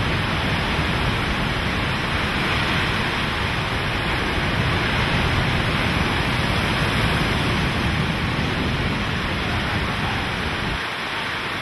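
Hurricane-force wind and driving rain making a steady, dense rushing noise, with the wind buffeting the microphone as a deep rumble that eases about a second before the end.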